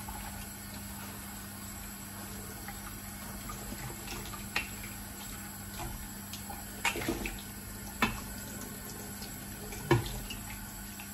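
Water running into a kitchen sink as a steady hiss, with a few sharp clinks and knocks of dishes in the second half, the loudest near the end.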